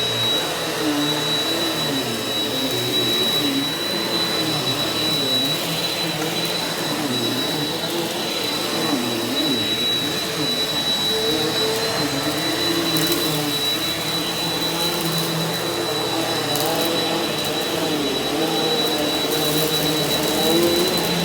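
Eureka NEU180B Power Speed upright vacuum cleaner running steadily on carpet: a high whine over a motor hum whose pitch wavers up and down.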